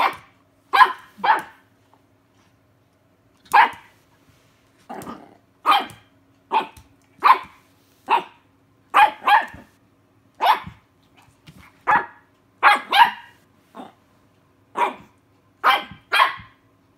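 Puppy barking at a cat in play: short, sharp barks, one or two at a time, roughly once a second.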